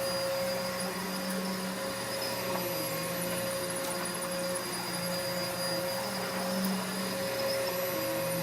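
Vacuum cleaner running steadily: an even motor whine over a low hum that wavers slightly in pitch.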